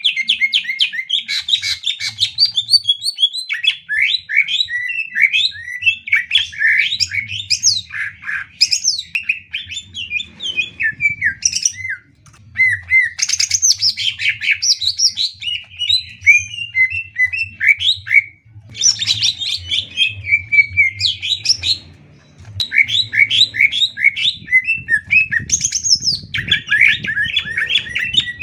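Cucak ijo (green leafbird) singing a loud, fast stream of chattering and whistled notes, with a few brief pauses. This is the full song used as masteran, a recording that cage-bird keepers play for other birds to learn from.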